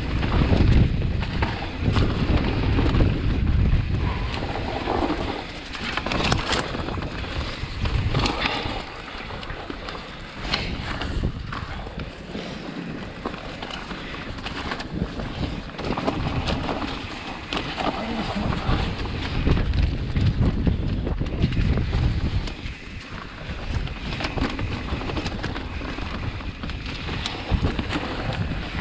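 Mountain bike ridden fast down a dirt flow trail: wind buffeting the microphone over the rush of tyres on dirt, the noise swelling and dropping with speed, with scattered knocks and rattles from the bike over bumps.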